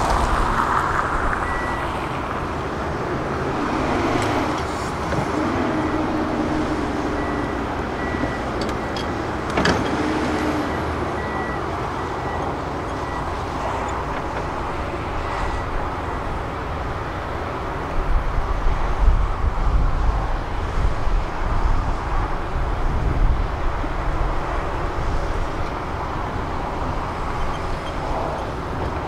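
Heavy diesel machinery running steadily: a Junttan pile-driving rig and a Hitachi excavator. About two-thirds of the way in, a run of low, uneven thumps begins.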